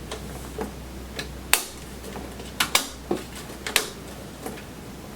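Irregular sharp metallic clicks and taps, about ten of them: a thin metal motherboard I/O shield being pressed and snapped into the back of a PC case.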